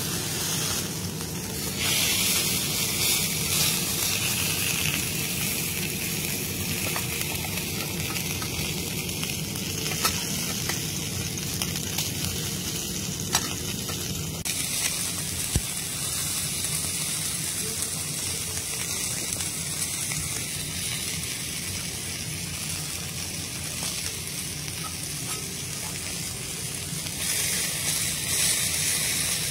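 Steak searing on a flat steel griddle: fat sizzling steadily, swelling louder at times, with a few light clicks.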